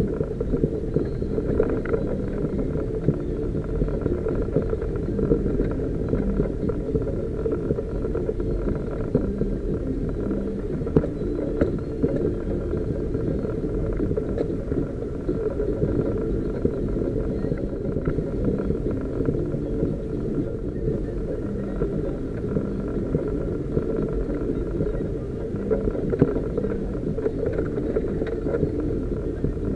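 A 4x4 driving slowly along a muddy, rutted green lane: steady low engine and tyre rumble, with a few brief knocks from the rough track.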